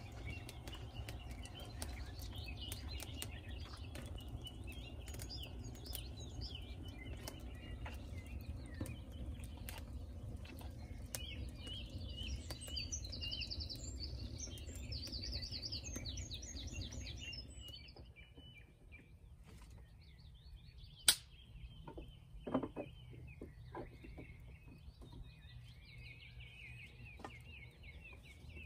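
Wood fire crackling and popping, with small birds chirping and trilling. About two-thirds of the way in, the crackling and a low rumble drop away, leaving the birdsong, one sharp snap and a few soft knocks.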